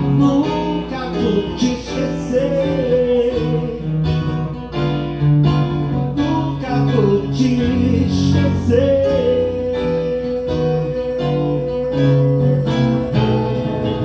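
Acoustic guitar strummed and picked, with a man's wordless vocal melody over it; over the last few seconds the voice holds one long steady note.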